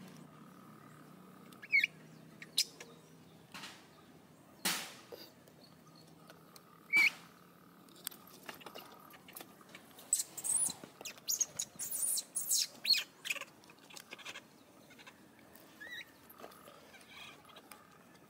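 Newborn macaque giving short, high squeaks, a rising chirp about two seconds in and again around seven. A few seconds past the middle comes a quick run of sharp clicks and scuffs.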